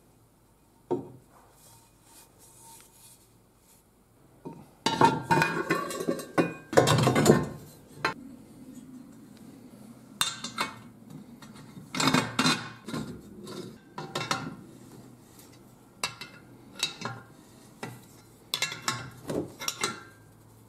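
Steel vise parts clinking, scraping and knocking against each other as they are handled and fitted together, with a bolt and wrench on the jaw. The sound comes in scattered clicks and short bursts of clatter, with the loudest, densest stretch about five to seven and a half seconds in.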